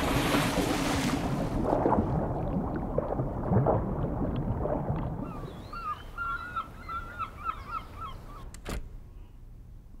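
Pool water splashing and churning with bubbles as a swimmer moves through it, loud for about five seconds. Then a bird chirps a quick run of short notes for a few seconds, with one sharp click near the end.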